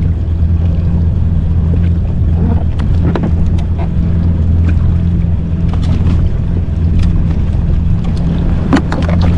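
Yamaha jet ski's engine idling with a steady low hum, with scattered short sharp clicks and taps over it.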